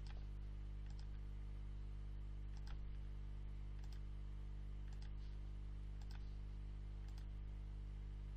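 Computer mouse clicks, a few sharp ones roughly a second apart, as points of a line are placed on a chart, over a steady low hum.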